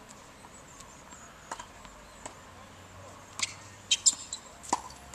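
Tennis ball being hit and bouncing on a hard court: a string of short, sharp pocks, a few faint ones in the first half and several louder ones close together in the second half.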